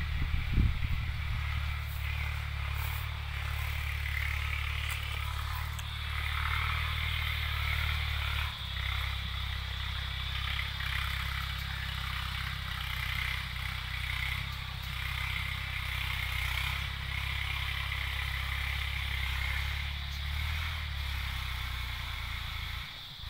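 Tractor engine running at a steady speed while ploughing, over a steady higher hiss. Its note shifts slightly about a third of the way through and drops away near the end.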